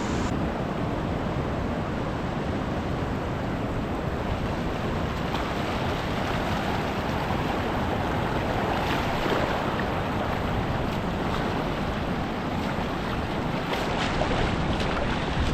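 Ocean surf washing and breaking over a rock platform, a steady rushing wash of sea water.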